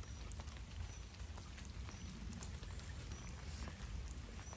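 Light rain pattering: many scattered faint drop ticks over a steady hiss, with a low steady rumble underneath.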